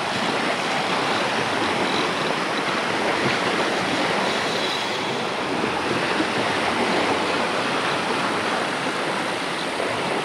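Steady, even rushing noise of waves and wind at the water's edge, with no distinct knocks or tones.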